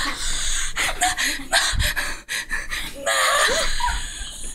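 Breathless, wheezy laughter in short bursts, with gasps and a few squeaky giggles.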